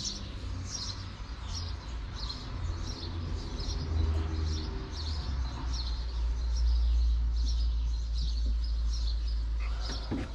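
A small bird chirping over and over, about two short calls a second, over a low rumble that swells in the second half.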